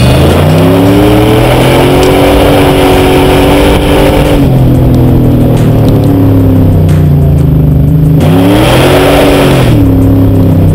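2000 Dodge Dakota's 4.7L Magnum V8 through a stainless dual catback exhaust with a Full Boar muffler, pulling as the truck drives. The engine note rises at the start, eases off about four seconds in, and rises and falls again about eight seconds in.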